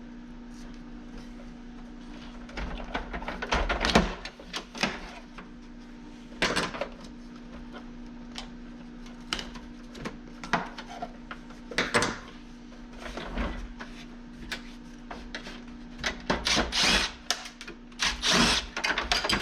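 Hand tools and loose metal parts of a dehumidifier being worked on: irregular clicks, knocks and rattles, coming thicker near the end. A steady low hum runs underneath.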